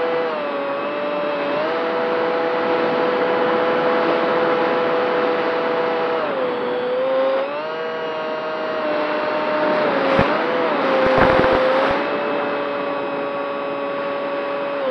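Radio-controlled model airplane's motor and propeller heard from on board, a steady high whine that dips briefly in pitch several times as the throttle changes. Wind rushes and buffets over the airframe for a couple of seconds around the middle.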